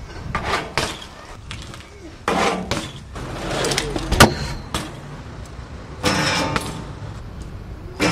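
BMX bikes landing and rolling on concrete: a string of sharp clacks and knocks from tyres and frames, with rolling tyre noise between them. The loudest impact comes about four seconds in.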